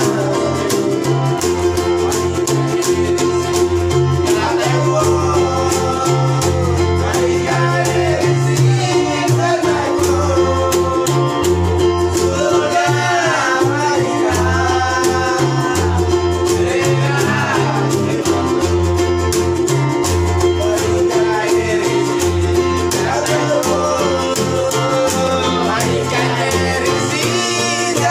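Papuan string-band praise song: an electronic keyboard, strummed ukuleles and a homemade wooden string bass plucking a bass line under a group of men singing together.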